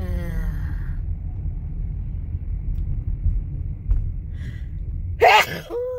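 Steady low rumble of a car driving on a highway, heard from inside the cabin. There is a brief vocal sound at the start and a louder one near the end.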